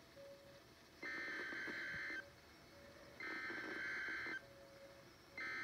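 EAS SAME header tones for a Local Area Emergency alert: three digital data bursts, each about a second long and about a second apart. The encoded header is what triggers the RadioShack 12-996 weather radio's alert.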